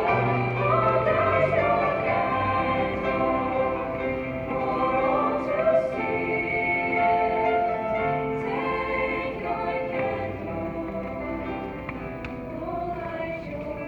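High-school senior choir singing.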